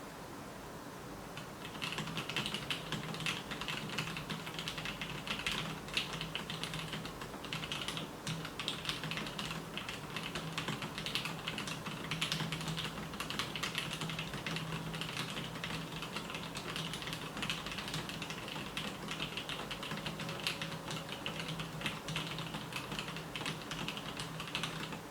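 Typing on a 980-layout mini mechanical keyboard in an acrylic stack case, fitted with lubed and filmed T1 tactile switches. A steady run of rapid keystrokes begins about a second and a half in.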